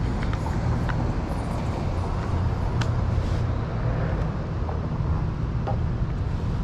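OneWheel electric board rolling over pavement: a steady low rumble of hub motor and tyre, with a few faint ticks.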